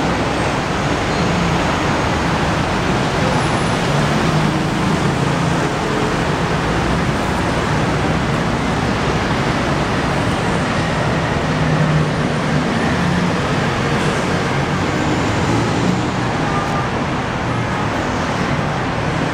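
Steady traffic noise from a busy multi-lane city street, with cars and motor scooters passing.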